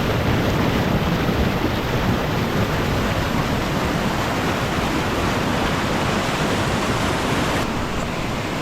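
Loud, steady rush of falling water from a waterfall, close by.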